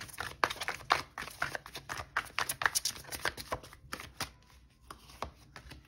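A tarot deck shuffled by hand: a quick, dense run of card flicks and slaps that thins out to a few scattered clicks after about four seconds.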